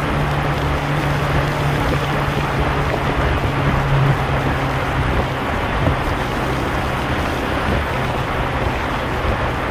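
Yamaha R15 V2's 150 cc single-cylinder engine running at a steady cruise, its note easing a little about halfway through as the bike slows, under a constant rush of wind and road noise.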